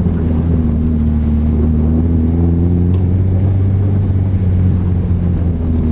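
Subaru Impreza STI's turbocharged flat-four engine droning at steady revs, heard from inside the cabin while driving, with road noise underneath.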